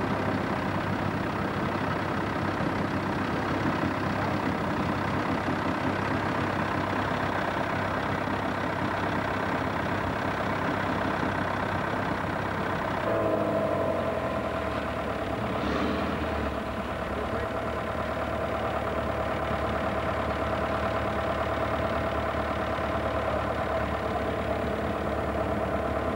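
Off-road 4x4's engine running steadily, then about halfway through it picks up to a higher, steady pitch under load and holds there.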